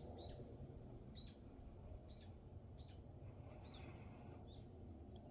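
A small bird calling faintly: a short, sharp, high note, each dropping quickly in pitch, repeated about once a second six times, over a steady low background rumble.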